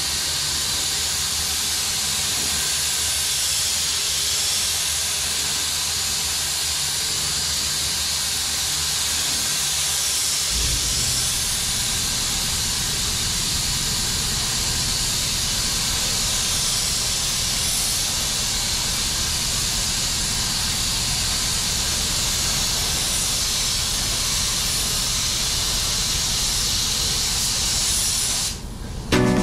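Gravity-feed paint spray gun hissing steadily as compressed air atomises single-stage acrylic urethane paint. A low hum joins about a third of the way in, and the hiss breaks off just before the end.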